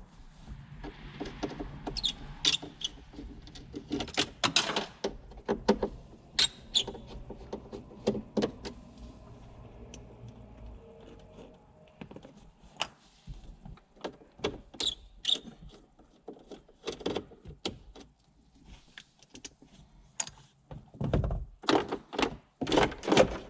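Irregular knocks, clicks and rattles of plastic dash trim and parts being handled and moved inside a Jeep Wrangler TJ's dash, with a cluster of louder knocks near the end.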